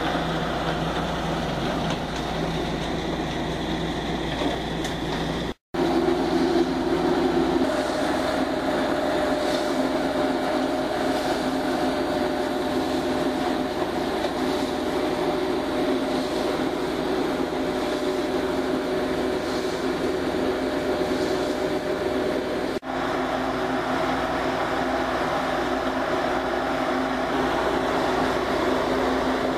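Gold-ore pilot plant machinery running steadily: a continuous mechanical noise with a few steady humming tones. It breaks off for an instant about five and a half seconds in and again near 23 seconds.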